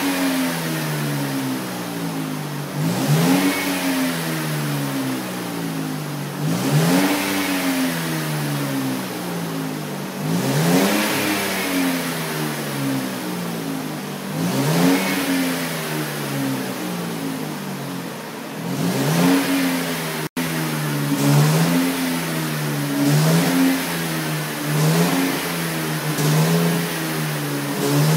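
Opel car engine revved again and again through its exhaust during an HHO carbon clean, blowing soot and vapour out of the tailpipe. For the first two-thirds each rev rises and falls about every four seconds; after a brief break it changes to quicker short blips about once a second.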